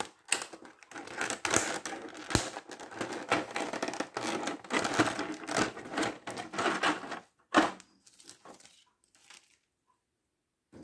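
Clear plastic blister trays crackling and clicking as they are handled and pried apart, with a sharp snap about two and a half seconds in and another about seven and a half seconds in. The crackling stops about eight seconds in.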